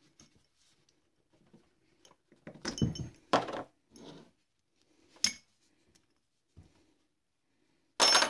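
Metal tools and alternator parts being handled on a workbench: a few clinks and clatters about three seconds in, a sharp click around five seconds, and a louder metallic clatter near the end.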